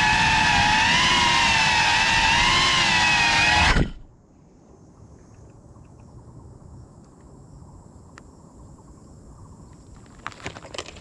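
Cinelog 35 FPV drone's motors whining, the pitch wavering up and down with throttle, heard close from the drone itself; about four seconds in the whine cuts off abruptly as the motors stop. A faint steady background follows, with a few light clicks near the end.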